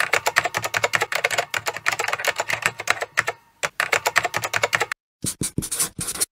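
Rapid typing keystrokes, a run of sharp key clicks matching the text being typed across the screen, with brief pauses a little past halfway and again about five seconds in.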